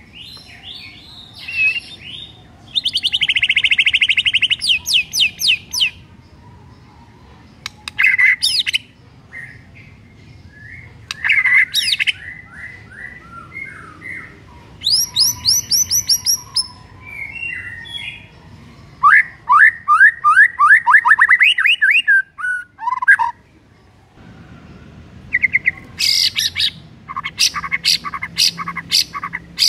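White-rumped shama (murai batu) singing: bursts of loud whistled phrases, fast trills and quick strings of sharp repeated notes, separated by short pauses, with a long run of rapid repeated notes near the end.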